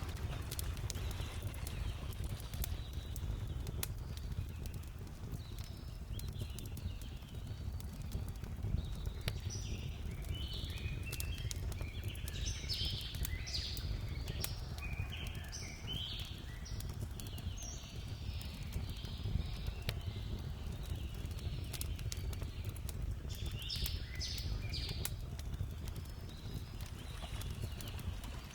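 Birds chirping in short, repeated phrases over a steady low rumble, with scattered sharp clicks throughout.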